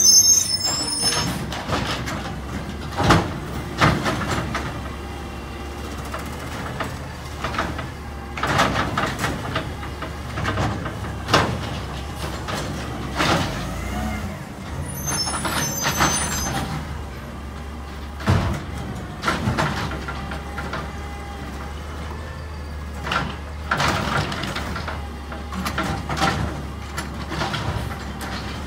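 Garbage truck's diesel engine running with a steady low rumble, broken every few seconds by short air-brake hisses and knocks as it stops and starts at low speed.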